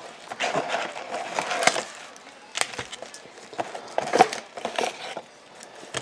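Trading-card packs and their cardboard box being handled: crinkling, rustling wrappers and light knocks in irregular bursts.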